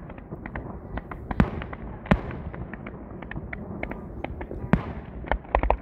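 Consumer fireworks going off: irregular sharp bangs and crackling from aerial shells over the steady hiss of a ground fountain. Loud bangs come about one and a half, two and nearly five seconds in, with a quick cluster of them near the end.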